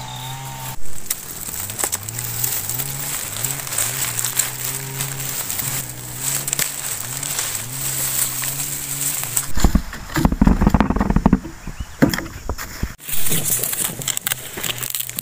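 Dry bamboo leaves and twigs crackling and rustling underfoot and against the body as someone pushes into a dry bamboo thicket. A louder burst of brush handling comes about two-thirds of the way in. A low engine drone that steps up and down in pitch runs in the background until then.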